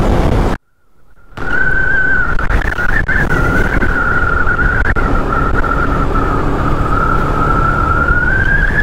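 Wind rushing past the microphone of a moving motorcycle, with a steady high whistle that wavers a little in pitch. The sound drops out for under a second near the start.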